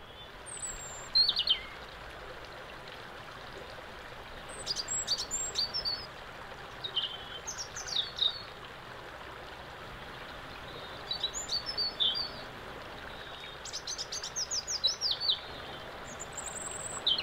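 River water running steadily over rocks, with songbirds calling in short groups of quick, high, falling chirps every few seconds.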